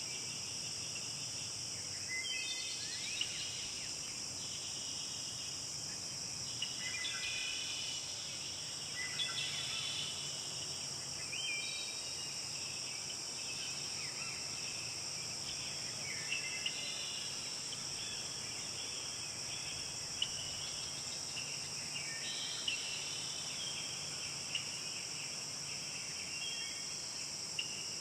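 Nature ambience: a steady high-pitched chorus of insects, with birds chirping on and off in short phrases over it.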